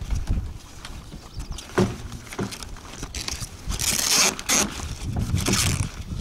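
Sail cloth rustling and scraping as a furled sail is handled and rolled on its spar, with a few light knocks; the loudest rustle comes about four seconds in.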